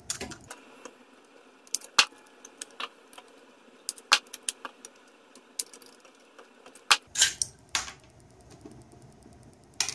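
Scattered sharp metallic clicks and clinks as a solid-state NMR probe is handled: screws being taken out of its base and its metal outer can worked loose. The loudest clicks come about 2, 4, 7 and 10 seconds in.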